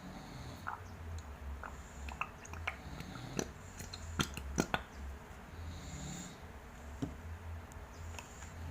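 Slime being handled and mixed: scattered small wet clicks and squelches, with a few sharper clicks a little past the middle.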